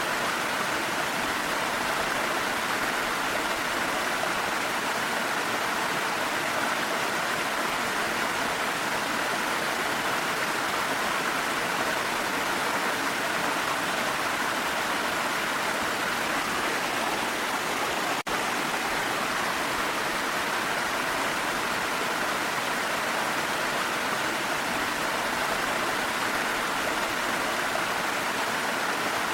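Steady, unbroken rush of falling water, as from a waterfall in mountain rain, with one momentary dropout about two-thirds of the way through.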